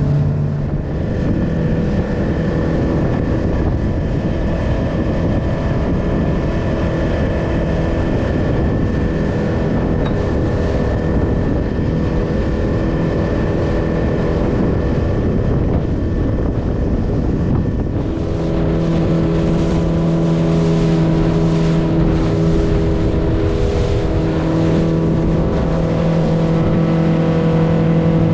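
Small fishing boat's engine running steadily under way, over a constant rush of noise. About eighteen seconds in, the engine note shifts and gets a little louder.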